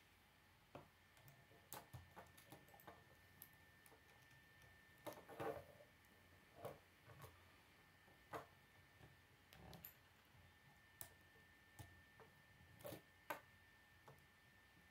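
Faint, irregular clicks and taps of plastic K'nex rods and connectors being handled and snapped together, a cluster of louder ones about five seconds in.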